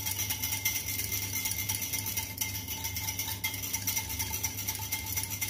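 Wire whisk beating curd in a stainless steel bowl, its wires ticking rapidly and evenly against the metal sides.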